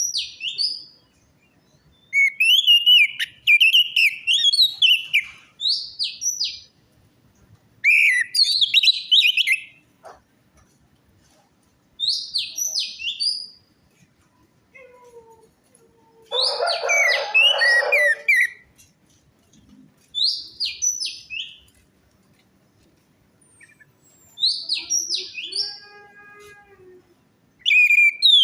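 Orange-headed thrush (anis merah) singing in short, varied whistled phrases with sliding pitch. The phrases come in bursts of one to two seconds separated by short pauses, and one phrase about halfway through is rougher and fuller.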